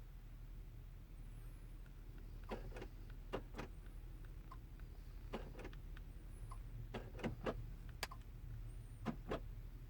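A series of about a dozen short, sharp clicks, many in quick pairs, starting about two and a half seconds in, over a low steady hum.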